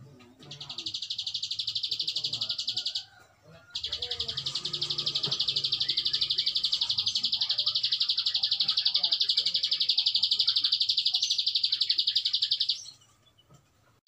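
Prenjak alang-alang singing a long, fast, high trill (ngebren). It starts about half a second in, breaks off briefly near three seconds, then runs unbroken for about nine seconds and stops about a second before the end.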